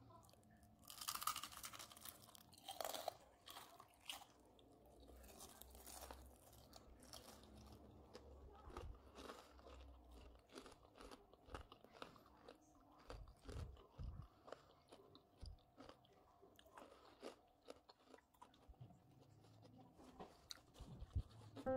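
Close-up chewing of a crispy fried onion ring: a few loud crunches in the first six seconds, then softer chewing crunches and clicks.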